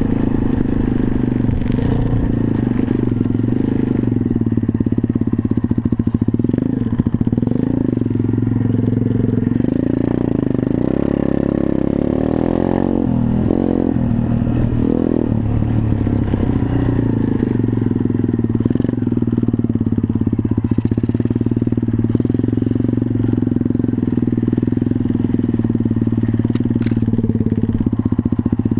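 A WPB 125cc pit bike's single-cylinder four-stroke engine running while riding along a dirt trail, its note rising and falling with the throttle through the middle.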